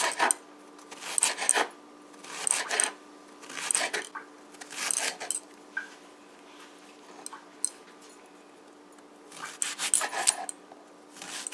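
A kitchen knife cuts an eggplant into pieces on a wooden cutting board. Each group of slicing strokes ends in knocks against the board, about one group every second at first, then a pause of a few seconds, then more cuts near the end.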